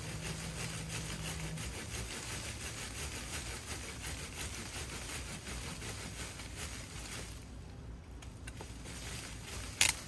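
Razor-tooth hand pruning saw cutting back and forth through a thick woody mahonia stem, a steady run of quick saw strokes that stops about seven and a half seconds in. Near the end comes a single sharp click.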